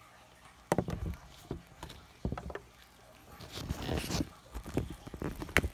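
Irregular knocks and bumps with stretches of rustling, ending in a sharp click near the end: handling noise close to the microphone as the camera is moved about.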